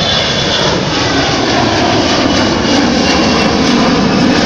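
Twin-engine jet airliner climbing out overhead just after takeoff: very loud engine noise that builds steadily, with a faint high whine at the start.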